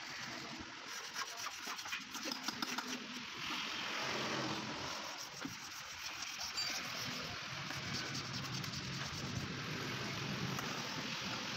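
Small hand blade scraping and cutting at a plastic car tail light lens and housing, a rough rubbing of tool on plastic in irregular strokes.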